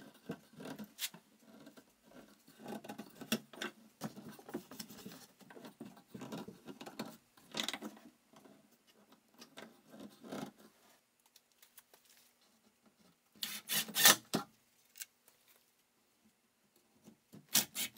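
Light clicks and rubbing as plywood drawer panels and a corner clamp are handled, then two short bursts from a cordless impact driver driving screws into the wood, about two-thirds of the way through and again at the end.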